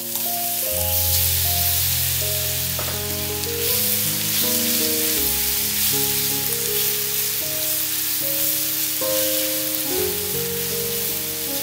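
Butter and caramelised sugar sizzling steadily in a nonstick frying pan as banana slices are added and stirred through with a silicone spatula. Background music with a run of held notes plays underneath.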